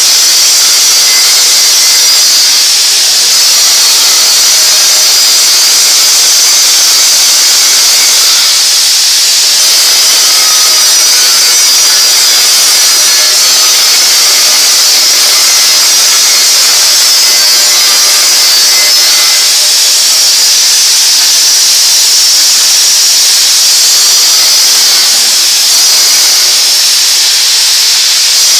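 Gas cutting torch hissing steadily as it cuts through a thick-walled pipe turning on a lathe, with faint whining tones coming and going.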